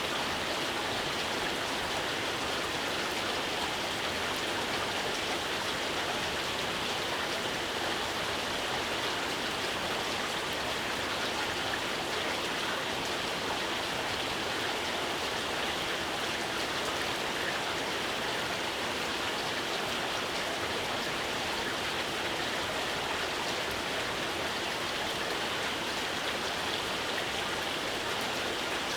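Steady rain falling, an even hiss of many drops with no distinct drips, thunder or other events.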